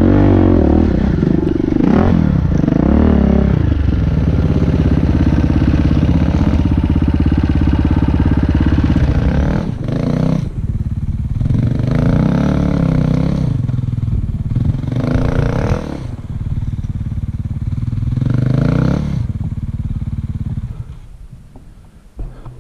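Dirt bike engine running hard and steady under load for about ten seconds. It then gives four separate throttle revs with lower running between them, and fades out near the end.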